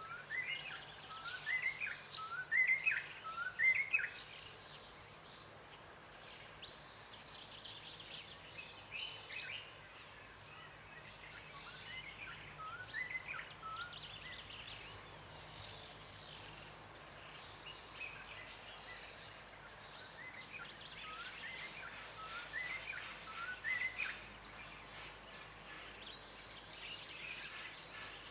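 White-browed robin-chat singing: three bouts of quickly repeated rising notes that grow louder within each bout, with fainter, higher-pitched calls of other birds between them.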